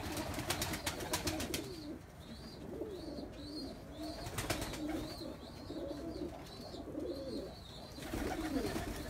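Domestic pigeons cooing again and again, each coo a low rise and fall. A faint high chirp repeats about twice a second through the middle, and there is a run of clicks in the first second and a half.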